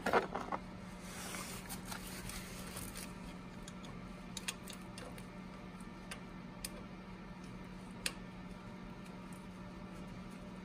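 Light clicks and small handling noises as bolts are put back into the engine by gloved hands, over a steady low hum. A quick cluster of clicks comes at the start, then single sharp clicks every couple of seconds.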